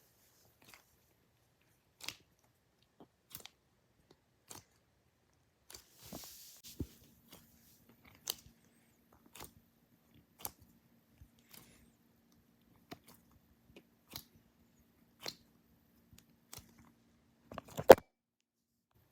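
Scattered small clicks and crinkles from squishy toys being handled, about one a second, with a faint steady hum through the middle and a louder knock near the end.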